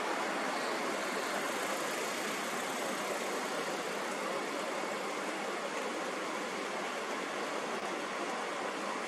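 Steady, even rushing noise with no rhythm or breaks.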